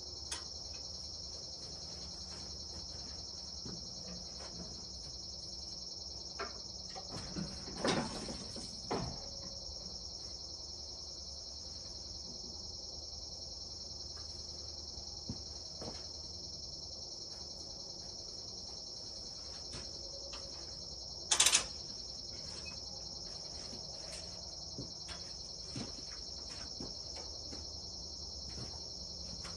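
Steady high-pitched insect drone, with a few scattered knocks and clacks, the loudest a cluster about eight seconds in and a sharp one about twenty-one seconds in.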